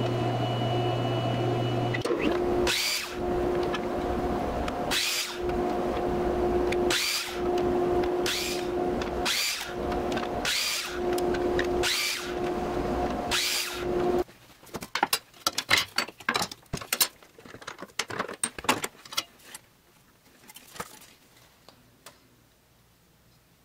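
Sliding miter saw running with a steady whine and cutting ipe hardwood boards one after another, a cut every second or two. Before that, a jointer-planer hums for about two seconds. After about fourteen seconds the saw stops and a scatter of sharp clicks and knocks follows.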